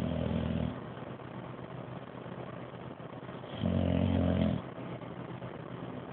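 Dog snoring: a short snore right at the start and another, about a second long, a little past halfway.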